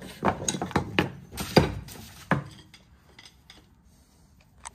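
Steel flat-blade screwdrivers clinking and tapping against the carrier bearing and housing of a Holden M80 differential as they are worked in as wedges to free the tight bearing. About seven sharp metal clinks come in the first two and a half seconds, then a few fainter taps.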